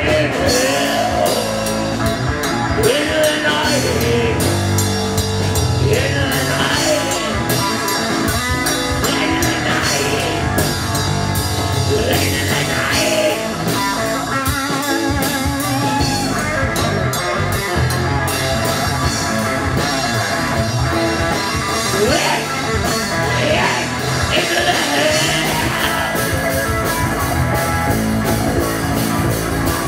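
Live punk/metal band playing loud: electric guitars and a drum kit, with vocals over them.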